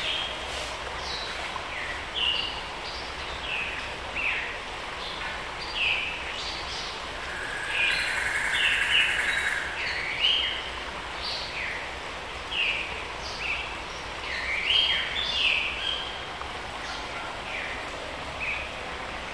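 Tropical forest ambience: several birds calling with short, falling chirps and whistled notes every second or so, a denser burst of song about eight seconds in, over a steady background hiss.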